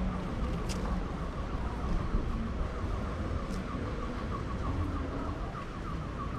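City street ambience recorded while walking: a steady rumble of traffic and street noise, with a rapid run of short chirps repeating about five times a second.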